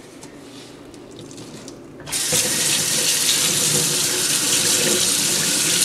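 Tap water from a kitchen faucet running into a stainless steel sink, starting suddenly about two seconds in and splashing over a makeup sponge held and squeezed under the stream.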